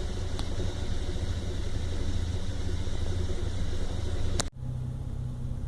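1997 Toyota Land Cruiser FZJ80's 1FZ-FE straight-six engine idling. About four and a half seconds in, a sharp click and a brief drop break the sound, and after that it idles with a steadier, quieter hum.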